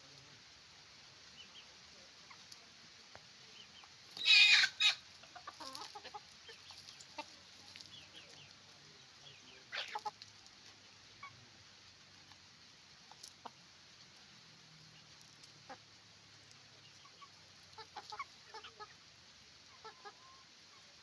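Chickens on a farm clucking and calling in scattered short notes, with a loud call about four seconds in and another about ten seconds in.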